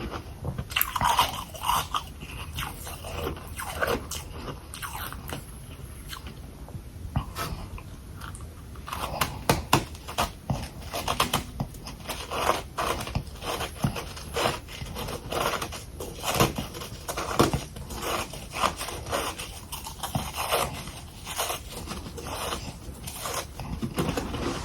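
Biting and chewing balls of humidifier freezer frost, heard close up: a long run of crisp crunches, fewer in the first several seconds and coming thick and fast from about a third of the way in.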